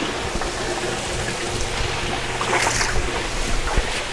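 Steady rush of water running through a fish-farm sump system, with the low steady hum of the above-ground sump pumps underneath. A brief louder sound rises over it about two and a half seconds in.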